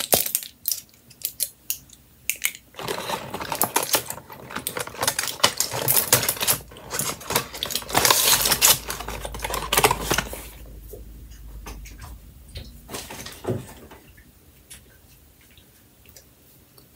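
Plastic-and-foil blister pack of chewable vitamins being handled, with a rapid run of crinkling clicks as a vitamin is pushed out. Rustling and a low rumble follow as someone moves right against the microphone, then it goes quieter with a few faint clicks.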